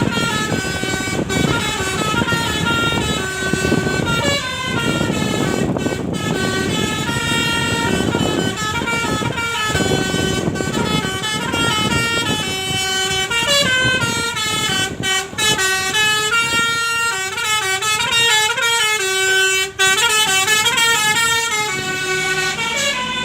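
Multi-tone 'telolet' air horn on a Midas Nusantara bus playing a melody, several notes sounding together and stepping from pitch to pitch without a break, over a low rumble.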